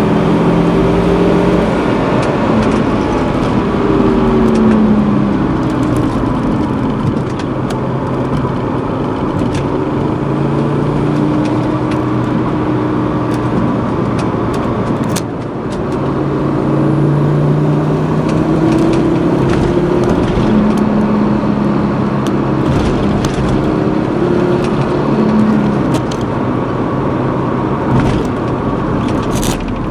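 Car running along a winding road, heard from inside the cabin: steady engine and road noise, with the engine note shifting up and down every second or two as the speed changes.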